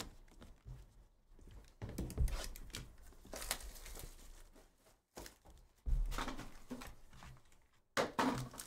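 Hands handling a cardboard trading-card hobby box and a foil card pack: irregular rustling and crinkling, with soft thumps about two seconds in and again about six seconds in.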